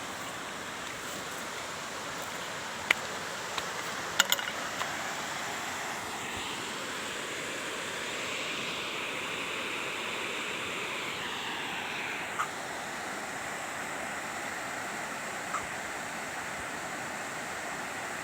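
Waterfall rushing as a steady roar of falling water, swelling slightly in the middle. A few short sharp clicks, the loudest about three and four seconds in.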